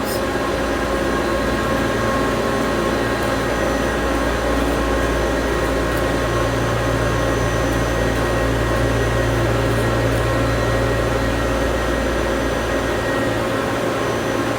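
Steady mechanical drone of an airport terminal's air handling, with several constant hum tones and a low hum that swells for several seconds in the middle.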